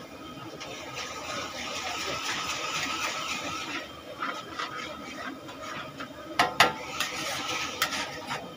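A metal ladle scraping and clanking against a wok while noodles sizzle as they are stir-fried. The sizzling swells over the first few seconds, and a run of sharp metal clanks follows, the loudest two close together about six and a half seconds in.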